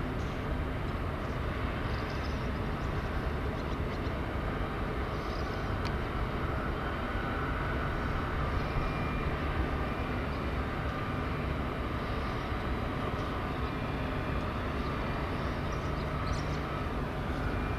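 Steady outdoor background rumble with a low hum underneath, the ambient noise of a town and harbour heard from afar; faint short high chirps come and go a few times.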